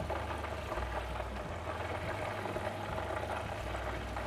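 Hot oil bubbling and crackling steadily in an electric deep-fat fryer as a basket of fried chicken is lifted from it, with a low steady hum underneath.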